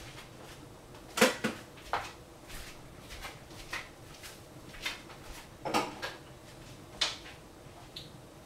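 Thick strawberry coulis simmering in a stainless steel pot, with bubbles bursting in irregular soft pops about once a second.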